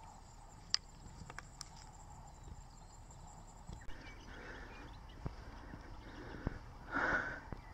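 Faint, irregular footsteps and small clicks of someone walking on a paved road, over a low steady rumble, with one short louder sound near the end.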